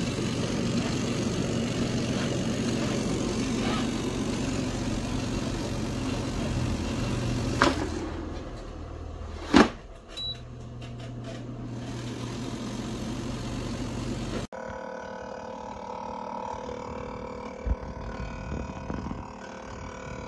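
Air fryer running: a steady fan hum with a low drone, broken by two sharp clicks about halfway through. Near the end it cuts abruptly to another air fryer running more quietly.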